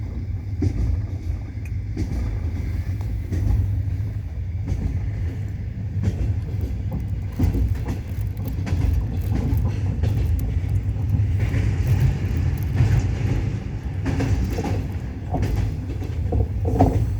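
Passenger train running, heard from inside a carriage: a steady low rumble with the clatter of the wheels (стук колёс) on the rails and scattered faint knocks.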